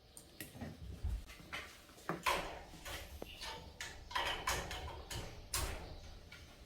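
Irregular knocks and short scrapes of wooden pieces being handled and set down on a work surface, a dozen or so in a few seconds.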